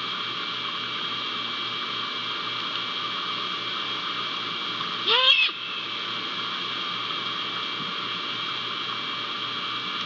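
Great horned owl giving one short call that rises in pitch, about five seconds in, over a steady hiss and hum.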